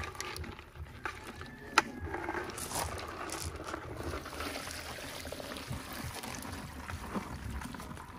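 Water trickling and splashing as crabs are washed, with one sharp knock a little under two seconds in.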